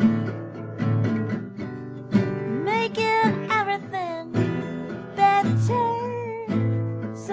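A woman singing with a strummed acoustic guitar, her voice holding and bending long notes over the strums.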